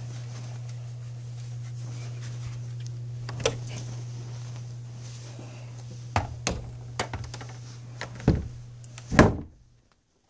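A door being handled and shut: several knocks and bumps, then a heavy thud about nine seconds in, after which a steady low hum is cut off.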